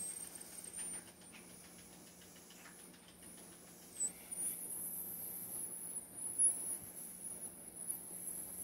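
Faint background noise: a steady hiss with a thin high-pitched whine that wavers in pitch, over a low steady hum.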